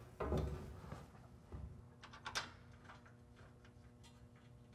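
Handling of a steel rock slider and its bolt against a truck frame: a dull knock near the start, another about a second and a half in, then a few sharp metallic clicks and faint ticks as the bolt is fitted by hand.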